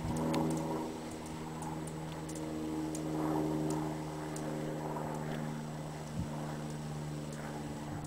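Wind buffeting the microphone in gusts over a steady, unchanging low machine hum.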